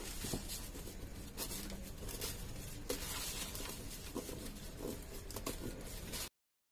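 Crepe paper rustling and crinkling as it is pleated and pressed by hand onto a papier-mâché piñata, in many small scratchy crackles. It cuts off abruptly near the end.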